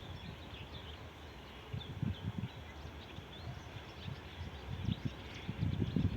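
Small birds chirping over a low, uneven rumble that swells briefly about two seconds in and again near the end.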